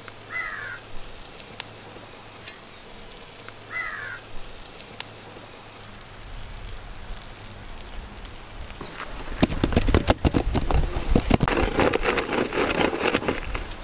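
Two short bird chirps over a faint background near the start. About nine seconds in, a loud stretch of clattering and scraping from the metal vessels begins as thick chocolate cake batter is emptied from a large steel bowl into a lined cake pan.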